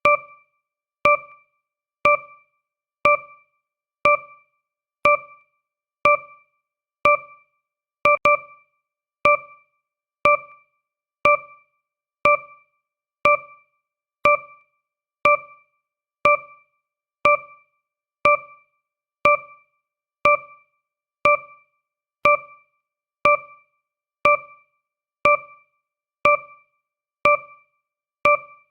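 Countdown timer's electronic beep sounding once every second: a short, piano-like tone that strikes sharply and dies away quickly, marking each second of the countdown.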